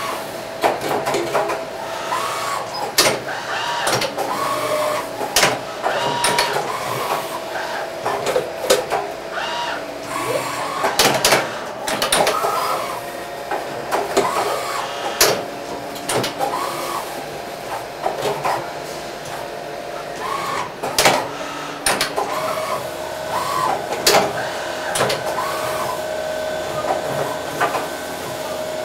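Porta Multicenter 310 machining center running its automated cycle: short whines that rise and fall again and again as the spindles and axes move, over a steady tone, with frequent sharp clicks and clunks.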